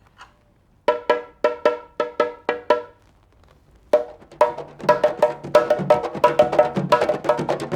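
Candombe drum struck in an even run of sharp, ringing strokes, about three a second. After a short pause a faster drum rhythm with deeper strokes starts, about four seconds in.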